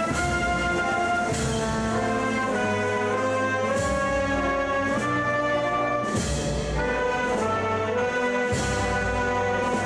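Procession band playing a slow Holy Week processional march: held brass chords, with a percussion strike every second or two.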